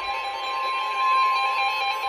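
Weather radio alert tone: a loud, steady electronic tone held without a break, with a fainter second tone just below it, sounding just before a severe thunderstorm warning from the National Weather Service is read.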